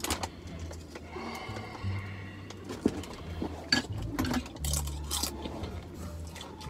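Background music with a low bass line, with a few short crunches from tortilla chips being chewed.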